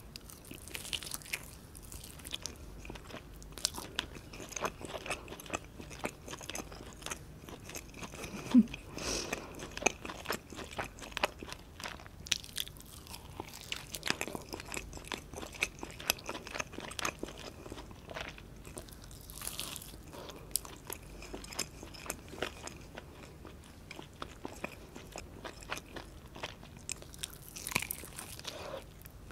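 Close-miked biting and chewing of a honey-glazed baked chicken drumstick: a steady run of small sticky clicks and smacks as the skin and meat are bitten and chewed, with one sharp louder click about eight and a half seconds in.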